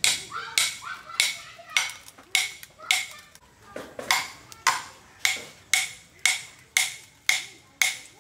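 Steady rhythmic striking, about two sharp blows a second, each with a brief ringing tone, like a blade or tool repeatedly knocking on a hard surface.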